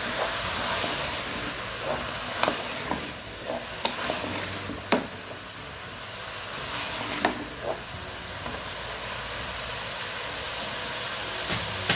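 Wooden spoon stirring chopped turnips, onion and tomato with spices in a metal pressure-cooker pot over a steady frying sizzle. The spoon knocks sharply against the pot a handful of times.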